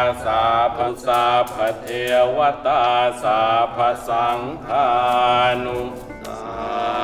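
Thai Buddhist monks chanting a blessing in unison, in short phrases that rise and fall. The chanting stops about six seconds in.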